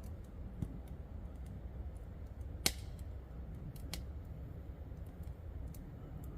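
A steady low rumble of background noise with a few sharp, isolated clicks. The loudest comes a little under halfway through, with another about a second later.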